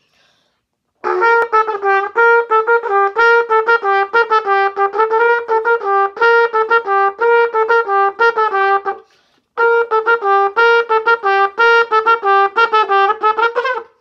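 A single instrument with a brassy tone playing a quick melody of short, repeated notes. It pauses briefly about nine seconds in, then carries on.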